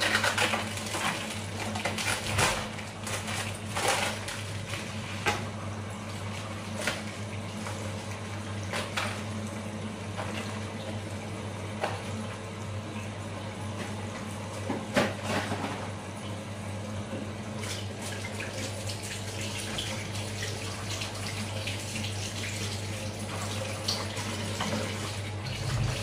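Kitchen tap running into the sink, with scattered clinks and knocks of things handled in the sink, most in the first few seconds and one about halfway through. A low steady hum sits underneath.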